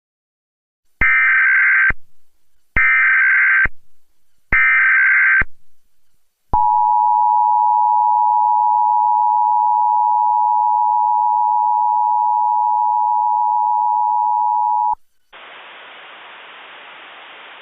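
Emergency Alert System tones: three short bursts of screeching digital SAME header data about a second apart, then the two-tone EAS attention signal held steady for about eight seconds and cut off sharply. A steady hiss follows near the end.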